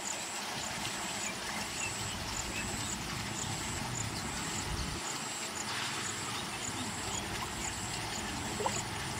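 Open-air ambience: a high, thin insect chirp pulsing about twice a second over a steady background hiss.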